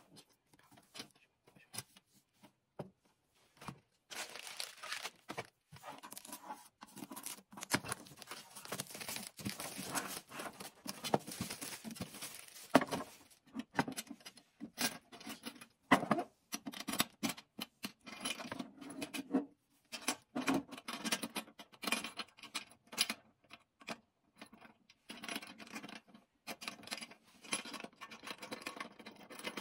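A small metal cash box being handled: scattered taps, knocks and scrapes, with rustling, as it is lifted, turned over and set back down on a table. Sparse light clicks at first, then busier handling noise with a few sharper knocks from about four seconds in.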